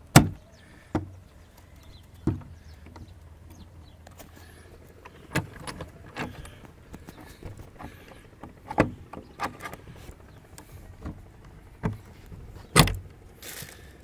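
Padlock and metal hasp on a wooden door being handled: a string of sharp metal clicks and knocks at irregular spacing, the loudest right at the start and near the end.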